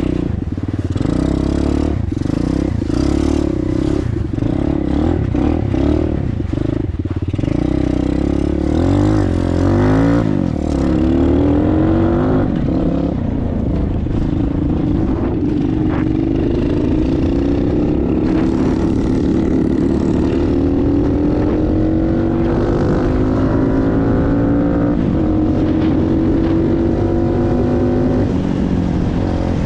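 Hawk 125 dirt bike's small single-cylinder engine idling, with metal tool clanks and scrapes over it in the first ten seconds. The idle wavers around ten seconds in, then creeps slowly higher as the engine warms up.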